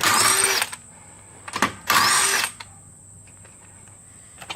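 Impact wrench (rattle gun) undoing a car's wheel nuts: two bursts of about half a second each, the second about two seconds in, with a short knock between them.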